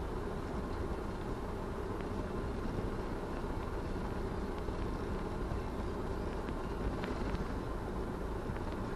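A car driving, with steady road and engine noise.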